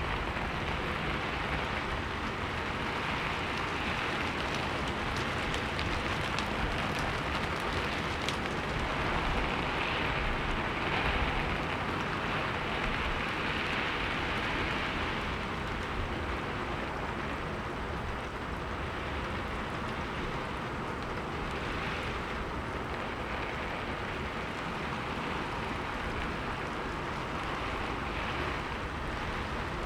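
Steady rain falling: a continuous, even hiss that swells slightly about a third of the way through.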